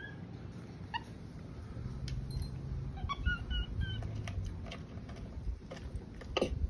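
Capuchin monkey rummaging and eating from a bin of leafy greens, with scattered rustles and clicks and a few short, high peeps about three seconds in.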